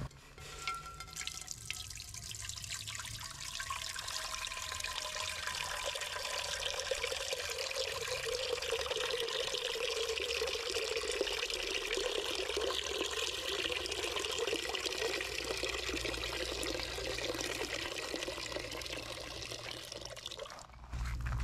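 Water pouring in a steady stream into a cooking pot, stopping about a second before the end.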